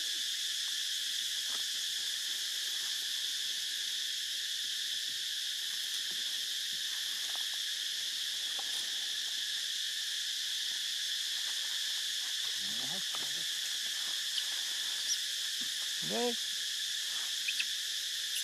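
Steady, unbroken high-pitched insect chorus, the drone of crickets or cicadas in the forest. Two brief, faint voice-like calls come through about two-thirds of the way in.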